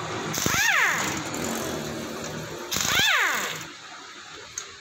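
Pneumatic impact wrench spinning out the 10 mm gearbox-case bolts on a scooter. It fires twice, once about half a second in and again near three seconds. Each time the air motor whines up in pitch and falls away over a hiss of air.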